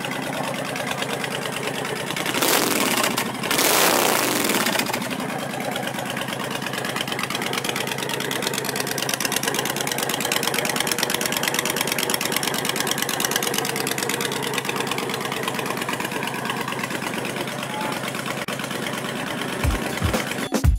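Honda Fury VT1300's V-twin with an aftermarket exhaust idling steadily, blipped twice in quick succession about two to four seconds in, each rev dropping back to idle.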